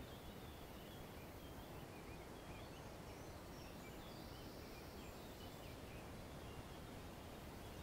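Faint outdoor garden ambience: a steady low background rumble with scattered faint bird chirps.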